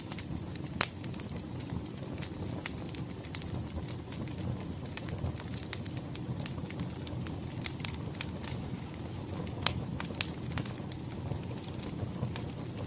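Wood fire crackling, with sharp pops scattered irregularly over a low, steady rush of the flames.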